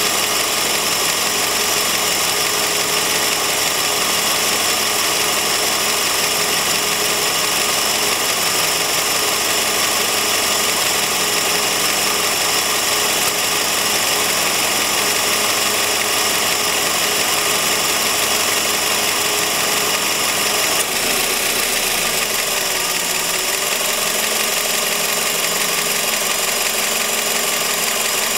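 2004 Toyota Vios engine idling with an abnormal noise from the accessory drive belt, which the owner links to the AC compressor pulley rusted by condensate dripping onto it. The deeper hum drops away about two-thirds of the way through while the running continues.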